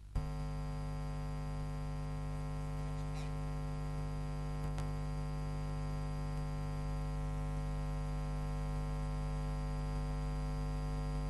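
Steady electrical mains hum, a buzz with many even overtones, switching in with a click just after the start.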